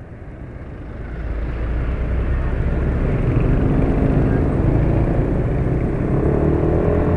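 Motorcycle on the move in town traffic: engine and wind rumble on the mic grow louder over the first couple of seconds as the bike picks up speed, then hold steady, with the engine note rising near the end.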